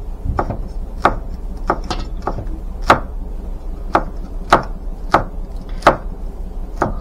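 Knife chopping a green chili pepper finely on a plastic cutting board: about a dozen sharp knocks of the blade on the board, unevenly spaced at roughly two a second.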